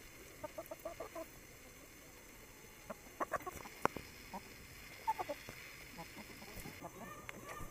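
Hens clucking softly in short runs of low calls as they crowd round to peck bread from a hand, with a few sharp clicks a little past the middle.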